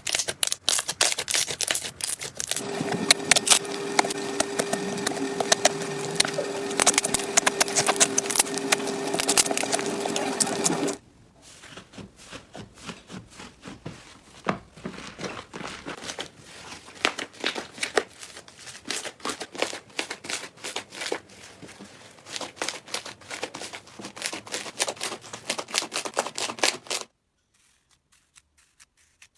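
Slime being squeezed and stretched by hand: dense crackling and clicking pops. A louder clip with a steady low hum under the crackle ends abruptly about eleven seconds in and gives way to softer clicking, which stops a couple of seconds before the end.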